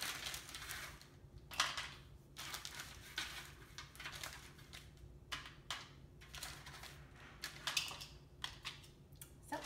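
A sheet of paper rustling and crinkling as small frozen yogurt bites are picked off it by hand and gathered into a bowl: a run of irregular, light crackles and clicks.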